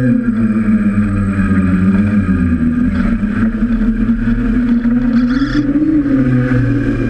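DJI F550 hexacopter's motors and propellers humming steadily, close up, the pitch wavering slightly up and down as the motors change speed.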